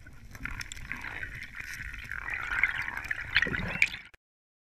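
Watery bubbling and gurgling sound effect for a logo intro, with small pops, ending abruptly about four seconds in.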